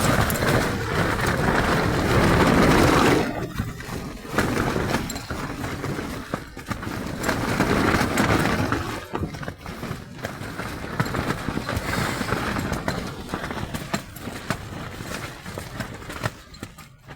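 Storm-force wind gusts battering a tent, swelling and easing. Through the gusts the tent fabric flaps with many sharp cracks. The wind is strongest a couple of seconds in and dies down near the end.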